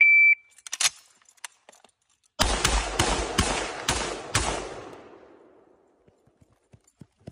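A short, high electronic beep, then about two seconds later a rapid string of about six shots from a Federal Ordnance M14A semi-automatic rifle in .308, fired over roughly two seconds. The echo dies away over the following two seconds.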